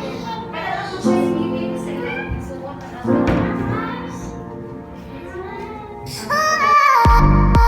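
Background music: a song with a light voice singing, then about seven seconds in a loud electronic dance track starts with deep bass and a steady beat.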